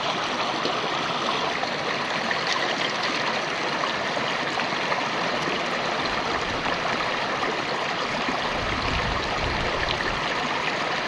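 River water running over rocks: a steady rushing and trickling, with a low rumble joining about three-quarters of the way through.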